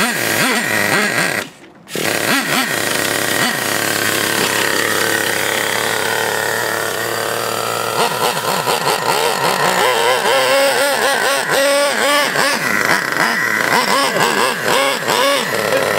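Traxxas Revo RC monster truck's small nitro engine being spun over with a handheld electric starter wand, the sound breaking off briefly about a second and a half in. It then runs on loudly, and from about halfway through its pitch rises and falls as it is revved.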